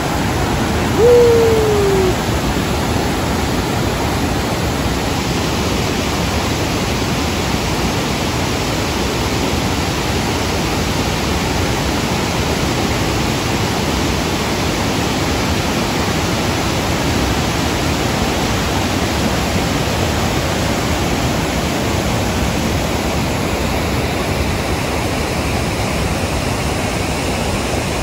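Rushing whitewater of the Athirappilly Falls cascading over broad rock ledges, a steady, even noise. About a second in, a single short falling tone sounds briefly above the water.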